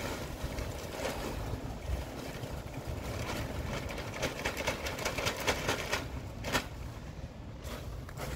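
Wind buffeting the microphone in a steady low rumble, with a run of short rustles and crackles from close handling.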